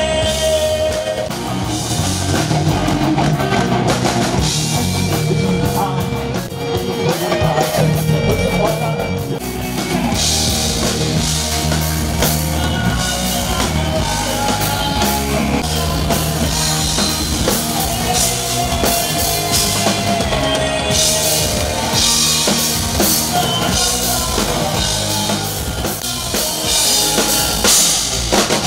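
Live rock band playing a song at full volume: drum kit driving the beat under electric bass and guitar.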